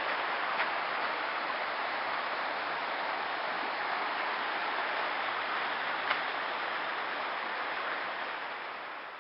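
Shallow creek water running over rocks and riffles: a steady rushing that fades near the end.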